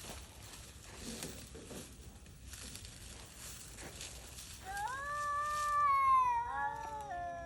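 Feral cat yowling: a single long, eerie wail that starts about two thirds of the way in, rises, holds and then slides slowly down in pitch before trailing off at the very end.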